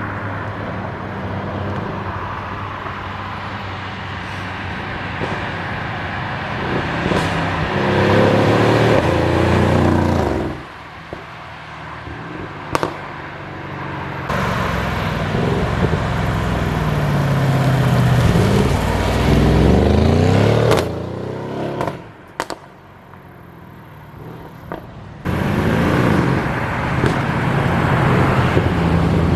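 Mercedes-AMG GLE 63 S Coupe's twin-turbo V8 through its loud exhaust, in several short clips with abrupt cuts between them. The engine note rises and falls as it accelerates and passes, with quieter stretches between runs.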